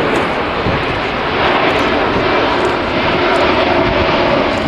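Airbus A380 airliner's four turbofan engines at climb power as it passes overhead and climbs away: a loud, steady jet noise with a faint hum held within it.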